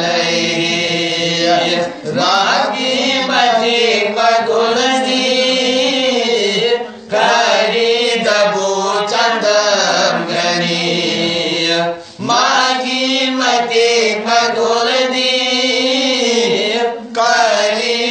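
Men chanting a Manipuri marifat (Sufi devotional) song together in long sung phrases. Each phrase breaks briefly for breath about every five seconds, and the next starts on a rising glide.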